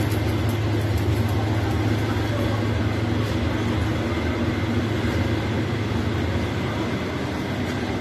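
Steady low mechanical hum with an even hiss over it, holding level without a break.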